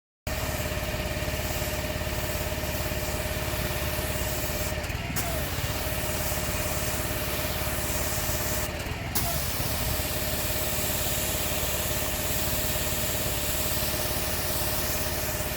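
Engine-driven industrial pressure washer running steadily, its spray lance hissing as it rinses the driveway; the spray cuts out briefly twice, about five and nine seconds in.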